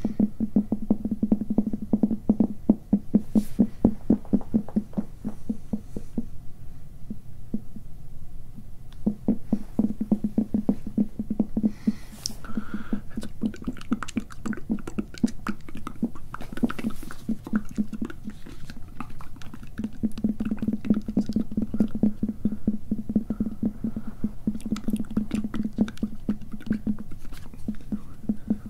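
Fingernails scratching rapidly on a microphone's mesh cover right against the capsule, a dense run of fast scratchy strokes with a heavy low rumble. It eases off briefly a few times, then picks up again.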